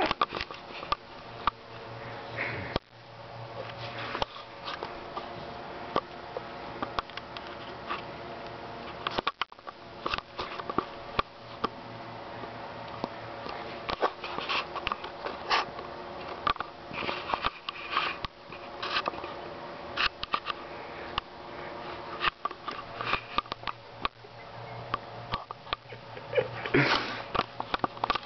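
A dog rolling on its back on a carpet, sniffing and snuffling in short irregular bursts as it wriggles and rubs its back on the pile.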